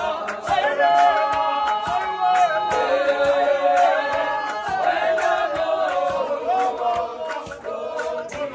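A group of men and women singing an unaccompanied gospel song together in harmony, over a steady beat of hand percussion at about two strokes a second.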